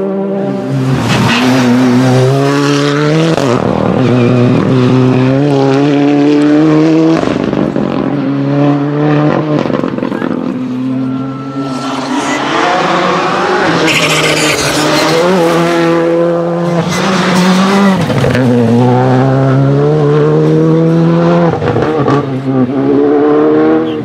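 Rally cars' engines revving hard through a tight bend, one car after another. Each engine climbs in pitch, then drops sharply at the gear changes and lift-offs.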